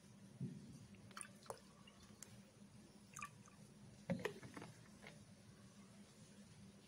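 Faint, scattered crackles and pops from a small wood fire burning under a clay pot, over a low steady hum.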